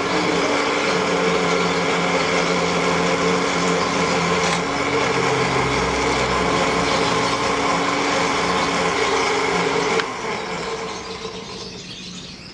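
Electric blender motor running steadily under load, grinding a spice paste that is not yet fine. It cuts off suddenly about ten seconds in.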